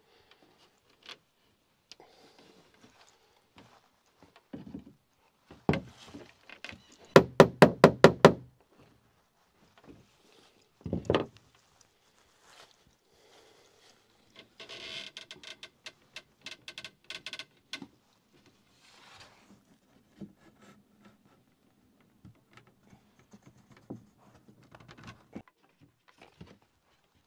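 Hammer knocking on wood as gunwale and thwart pieces are worked together: a single knock, then a quick run of about seven hard strikes, another knock, then lighter clicks and taps of wood being handled.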